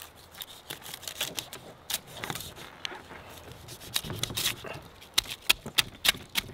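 Knife cutting along the body of a whole albacore tuna in a series of short, sharp strokes, irregular at first and then settling into an even rhythm of about three strokes a second in the second half.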